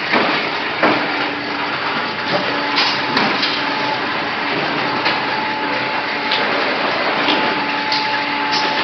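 Oil filling machine running while it fills a square metal oil tin: a steady mechanical din with a hum that comes and goes, broken by several sharp knocks.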